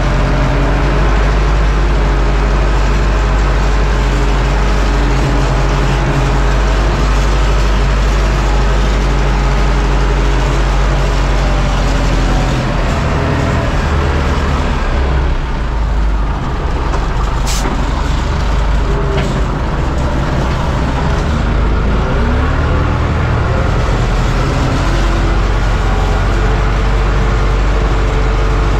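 Fortschritt ZT 300 tractor's six-cylinder diesel engine running steadily, heard from inside its cab while pushing snow. About halfway through the engine note dips and then climbs back, and there is one sharp click partway through.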